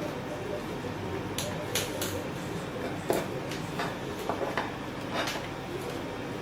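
Hand saddle-stitching leather: a scattered run of light clicks, taps and short scratchy pulls as needles and thread are worked through the punched holes, over a steady low background rumble.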